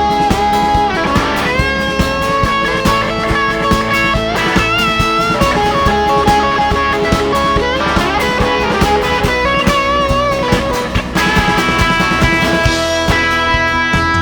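Rock music instrumental break: an electric lead guitar playing a melody with bends over drums and bass.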